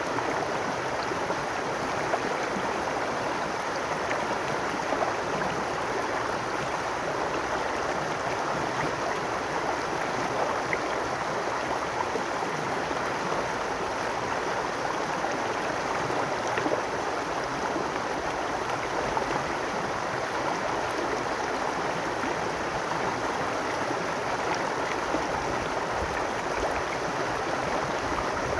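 Babbling brook: water running and splashing steadily over stones, with small gurgles and drips.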